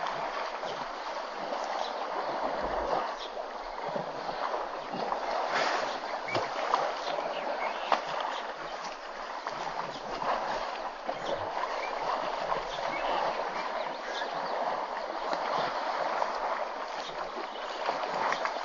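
Elephant calves wallowing and rolling in a shallow waterhole: continuous water sloshing and splashing, with scattered small splashes.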